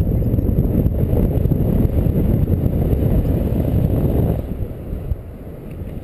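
Airflow buffeting the camera microphone of a paraglider in flight: a dense low rumble of wind that eases about four seconds in.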